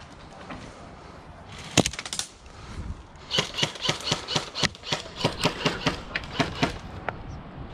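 Airsoft fire in a skirmish: a quick cluster of sharp cracks a little before two seconds in, then a rapid string of sharp cracks, about four or five a second, from about three seconds in.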